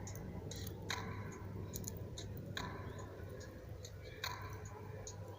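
Faint, irregular sharp clicks and crackles over a low steady hum, with three stronger clicks about a second apart and a short ring after each.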